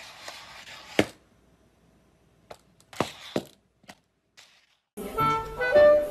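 A few sharp knocks over a faint hiss: a loud one about a second in and two close together about three seconds in. Music starts about five seconds in.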